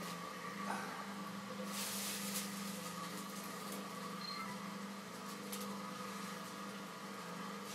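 Electric potter's wheel running with a steady hum while wet clay is thrown on it, with a brief hiss about two seconds in.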